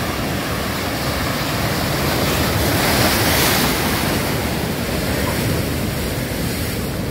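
Atlantic surf breaking and washing up the beach in a steady rush, swelling loudest about three seconds in as a wave breaks.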